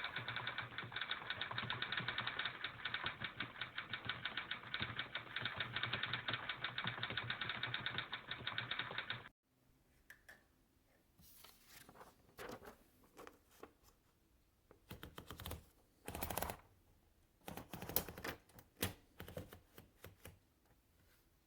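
Rapid, dense typewriter clicking for about nine seconds that cuts off abruptly. After it come scattered clicks, knocks and brief rubbing, as of a portable typewriter and its case being handled.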